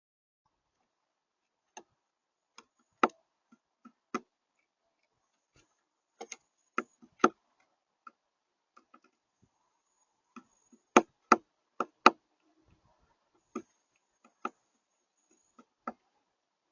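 Birds pecking and tapping at a bird feeder: about twenty sharp, irregular taps, some in quick pairs or little runs, with pauses between.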